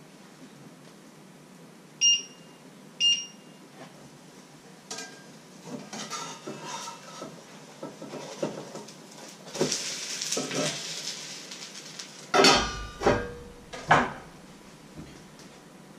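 Metal cookware clattering at a stove: two short ringing clinks, then scraping and rattling, then three loud clanks near the end as a frying-pan lid is lifted and put back.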